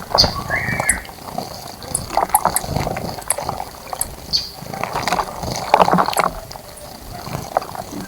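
Small birds splashing in a shallow bird bath: irregular bursts of flicking water, with one short chirp about half a second in and scattered faint high ticks.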